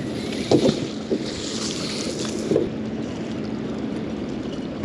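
Strong wind buffeting the microphone over choppy water lapping against a small boat, with a few light knocks about half a second, one second and two and a half seconds in.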